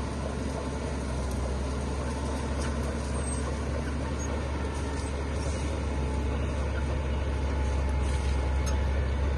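Heavy construction machine's diesel engine running steadily, with a deep, even low rumble.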